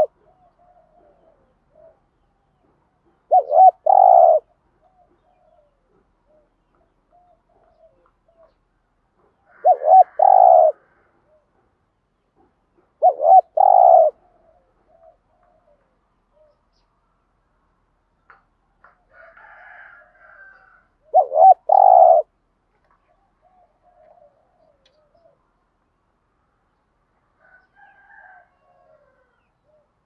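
Spotted dove cooing: four loud three-note phrases, each two short notes then a longer one, several seconds apart.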